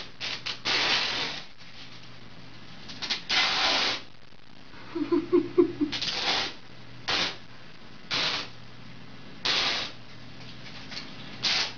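Cat licking and mouthing sticky tape on the top of a chair leg: short rasping, crackling strokes, roughly one a second with pauses. A little past the middle comes a brief, loud, rapidly stuttering burst, the loudest moment.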